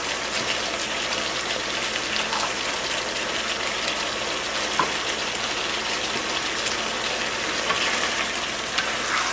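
Chicken, chicken liver and mushrooms in sauce sizzling steadily in a frying pan, stirred with a wooden spatula near the end.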